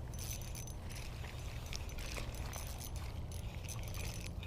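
Steady low wind rumble on the microphone, with faint scattered clicks and rattles of an ultralight spinning reel and rod handling as a hooked bass is reeled in.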